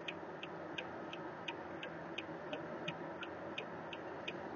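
Steady road and engine noise inside a moving car, with a light, regular ticking about three times a second.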